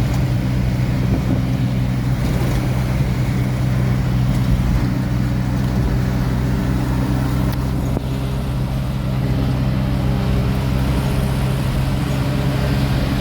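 Truck engine running at a steady speed, an even low drone heard from inside the cab.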